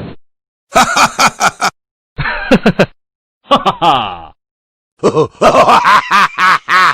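A run of short laugh sound effects, one after another with dead silence between them: a choppy laugh about a second in, a shorter one after two seconds, another around three and a half seconds, then a longer laughing burst from about five seconds on. Each clip is a different recording with its own voice and sound quality.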